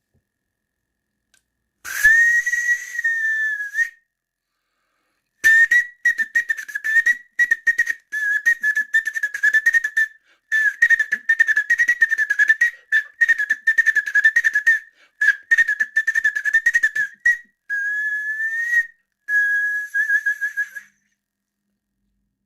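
A tune whistled through a corn cob with kernels picked out to make a makeshift whistle: one shrill note wavering up and down around a single pitch, in phrases broken by short gaps, with light clicks along with it.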